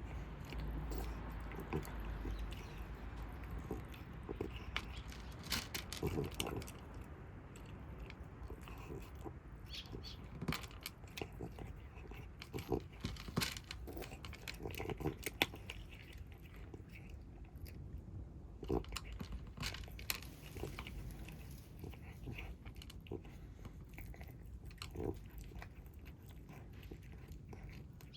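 Stray kittens eating their food, with irregular crunching and chewing sounds.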